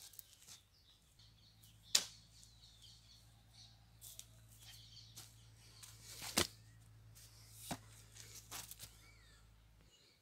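Quiet outdoor ambience with a few sharp clicks, the loudest about six seconds in, over a low steady hum and faint chirps.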